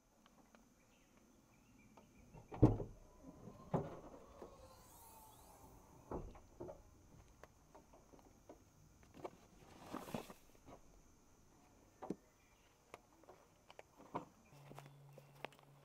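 Scattered knocks, clacks and rustles of camping gear being handled by hand, the loudest about two and a half seconds in, over a faint steady high tone that stops near the end, when a low hum begins.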